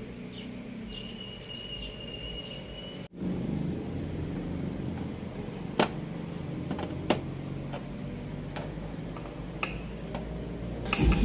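A few sharp clicks and knocks from an LED TV being handled and its cover closed up, over a steady low hum.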